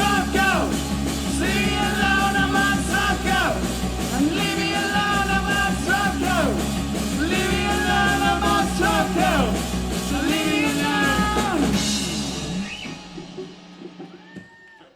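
Live band playing the last bars of a rock song with sung notes over it; the band stops together about twelve and a half seconds in and the sound rings out.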